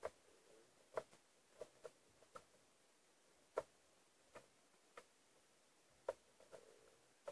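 Faint, sharp clicks and taps at irregular intervals, about ten in all, from hands handling the opened plastic and metal housing of a George Foreman grill.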